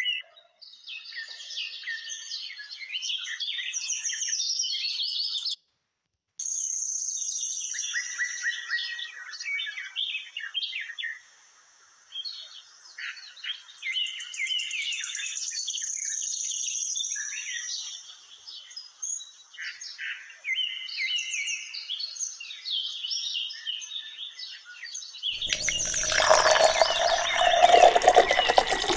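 Birds chirping and tweeting, thin and high-pitched, cutting out briefly about five seconds in. Near the end, water is poured into a steel cooking pot, a loud splashing that drowns the birds.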